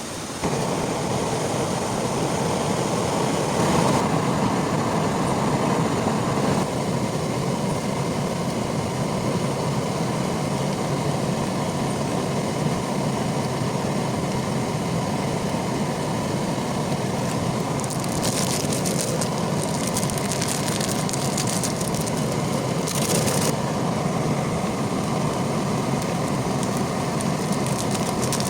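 Heavy rain falling in a dense, steady patter, with a few brief sharper hissing stretches about two-thirds of the way through.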